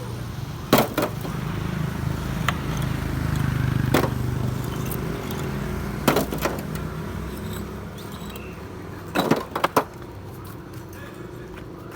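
A low engine rumble that swells and fades, with a scattering of sharp knocks and clanks, about eight in all.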